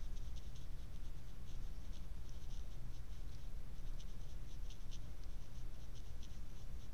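Paintbrush laying watercolour on paper: many short, soft scratchy strokes in an irregular run, over a steady low hum.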